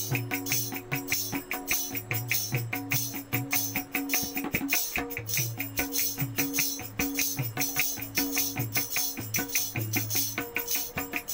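Instrumental interlude of a devotional bhajan: a jingling hand-percussion beat, about four strokes a second, over held melody notes.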